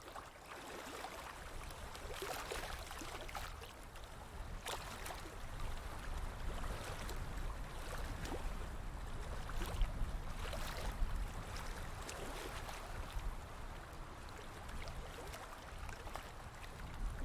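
Stream water flowing and splashing, with irregular small splashes and gurgles over a steady low rumble.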